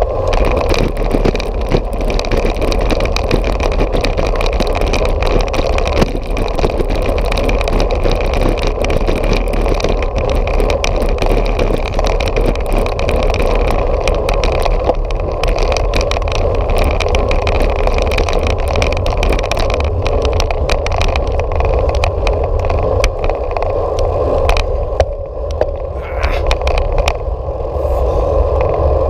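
Bicycle ride heard through a camera mounted on the bike: steady rumble of the tyres and frame vibration on the concrete path, with wind on the microphone. Many small knocks and rattles come from bumps in the surface.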